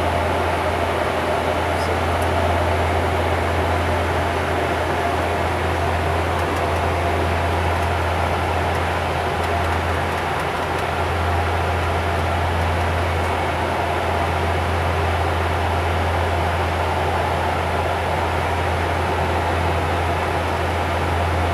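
Steady cabin noise in the cockpit of a Bombardier Q400 turboprop in cruise: a constant low propeller drone under an even rush of airflow and ventilation.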